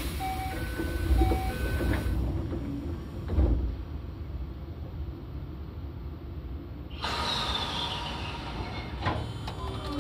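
Inside a Toei 5300 series subway car, over its line breaker: a sharp clunk at the start, a few short steady tones, and a heavy thump about three and a half seconds in. About seven seconds in, running noise rises with a falling whine, and there is another click near the end.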